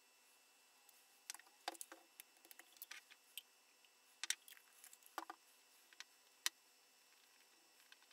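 Scattered light clicks and taps of a bottle, a spatula and a small ceramic dish being handled on a wooden table, a few of them sharper clinks, then quiet for the last second or so.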